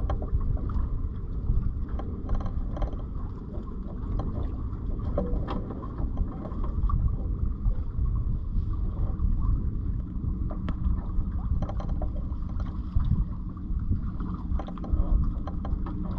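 Wind rushing and buffeting over the microphone aboard a sailboat under way, with small clicks and knocks scattered through.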